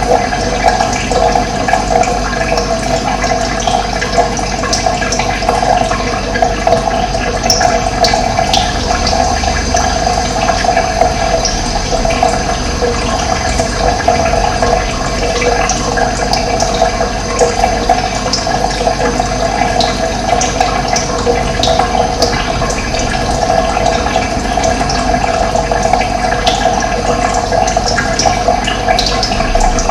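Steady, loud rush of running water, with occasional faint bird chirps above it.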